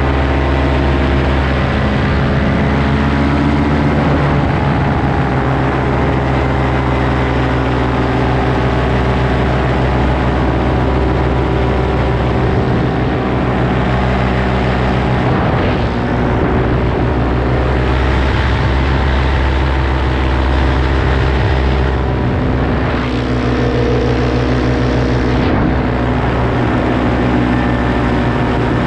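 Paramotor engine and propeller running steadily in flight, a loud continuous drone with small shifts in pitch.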